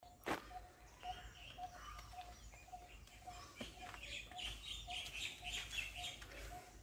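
Faint outdoor birdsong: one bird repeats a short single-pitched note two or three times a second, while other birds chirp higher up, busiest in the second half. A single sharp knock sounds about a third of a second in.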